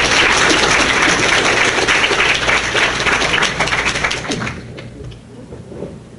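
Audience applauding: many hands clapping together, dying away about four to five seconds in.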